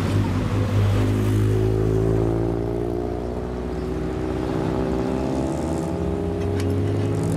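Engine and exhaust of a lowered classic Japanese car running at low revs as it rolls slowly past, a steady low note that sags a little in the middle and rises again near the end.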